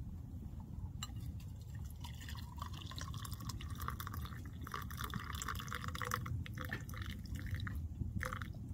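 Water poured from a black metal pot into a stainless steel mug, a steady splashing trickle. It starts about a second in and stops just before the end.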